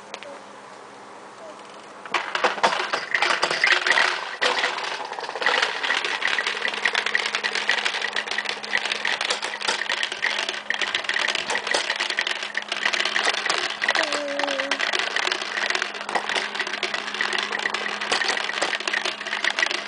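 Plastic push-down spinning toy whirring and clattering, the pieces inside rattling against the clear dome as its plunger is pressed, starting about two seconds in and running on steadily. A short baby coo comes near the middle.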